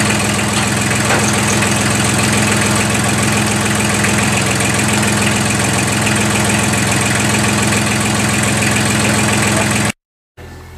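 Compact tractor engine running steadily at idle with a constant low hum, then cutting off suddenly near the end.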